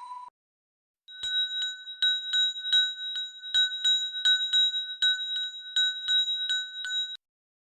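Cartoon bell-like sound effect: a steady high ringing tone with clicks about two or three times a second, cutting off suddenly about seven seconds in.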